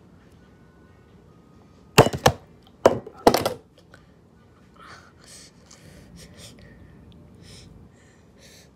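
About five sharp knocks on a hard surface in quick succession between two and three and a half seconds in, followed by faint, scattered hissing sounds.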